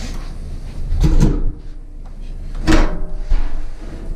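Heavy cast iron bathtub scraping and knocking as it is tipped forward and shifted into its alcove, with two loud bursts, one about a second in and one just under three seconds in.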